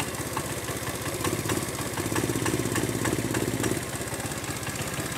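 Kinetic 4S scooter engine idling with its slow-running (idle) screw turned up, a little louder for a couple of seconds in the middle. The mechanic puts its misfiring on a fuel-air mixture that isn't right.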